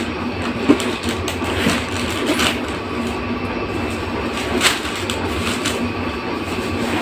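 Paper and plastic rustling and crinkling as stuffing paper is pulled out of a new handbag, with a few sharp clicks of handling, over a steady background hum.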